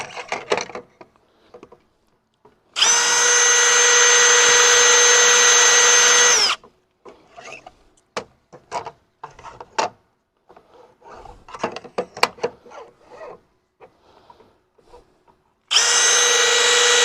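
Cordless drill running at a steady speed with a constant whine, once for about four seconds and again for a second and a half near the end, with scattered clicks and knocks between.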